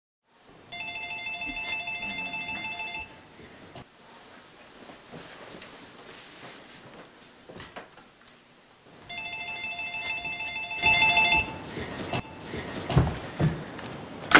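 Phone ringing with an electronic ring tone: two rings of about two and a half seconds each, about six seconds apart. A few short thumps follow near the end.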